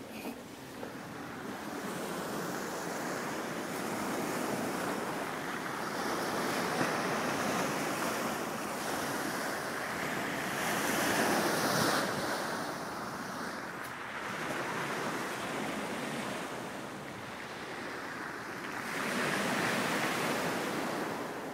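Sea waves breaking and washing on a shingle beach, a steady rush that swells and fades in long surges.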